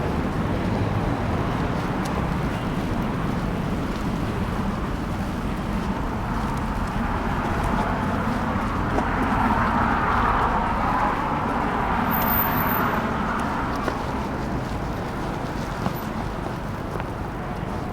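Street ambience in a snowstorm: heavy wind rushing against the microphones mixed with the rush of passing car traffic, a steady noise that swells for a few seconds midway.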